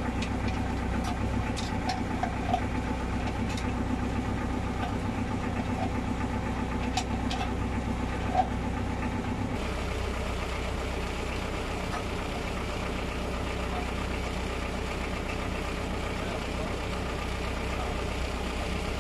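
A steady low engine hum, like an engine idling, runs under the work, with several light metallic clicks and clinks of tools in the first half. The background changes abruptly about halfway through.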